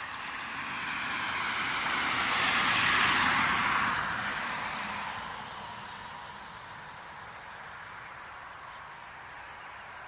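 A vehicle passing by: road noise swells to a peak about three seconds in, its pitch sliding down as it goes past, then fades away by about six seconds.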